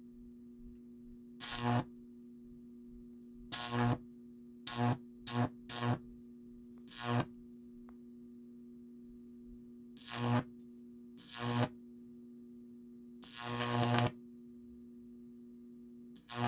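A microwave oven transformer hums steadily, broken by about nine bursts of high-voltage arcing. Each burst is a loud buzzing crackle under a second long, several of them swelling before they cut off, and the longest comes near the end.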